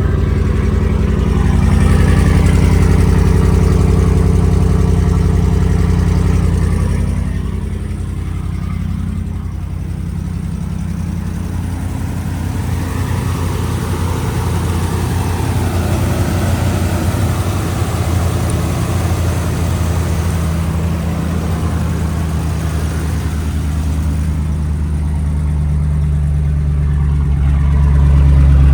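2011 Ram 1500's 5.7 L Hemi V8 running steadily just after starting, fed through a jumper wire that bypasses a failed fuel pump relay inside the TIPM. It drops in level about seven seconds in and builds up again near the end.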